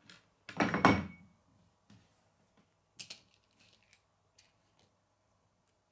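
Small plastic K'nex pieces clattering as a hand sorts through a pile of them, a loud rattle about half a second in lasting about a second, then a sharper click and a few light clicks.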